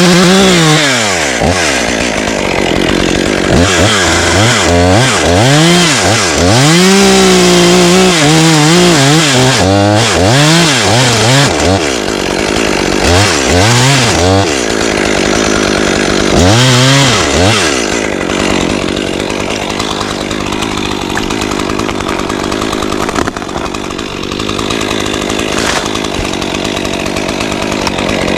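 Chainsaw revving up and down over and over, its pitch swinging high and low. About eighteen seconds in it settles into a steadier, rougher sound with no clear pitch, typical of the saw cutting through wood.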